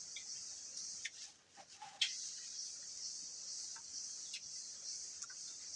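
Steady high-pitched drone of insects (crickets or cicadas), with a few short chirps and clicks scattered through it; the loudest click comes about two seconds in.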